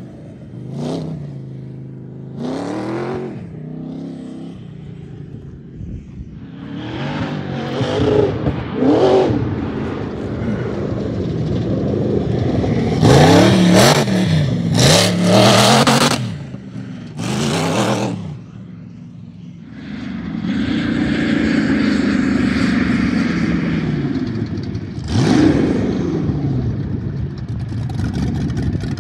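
Supercharged LS V8 of a VW Bug sandrail revving hard in repeated bursts as it is driven across sand, its pitch climbing and falling with each burst. There are several quick revs at first, then longer runs up through the gears, loudest around the middle, and steadier running late on with one more sharp rev.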